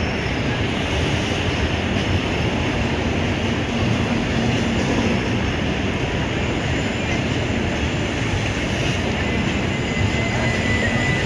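LHB passenger coaches of a long express train rolling into a station platform, a steady rumble of wheels on rail. A faint high squeal comes in near the end.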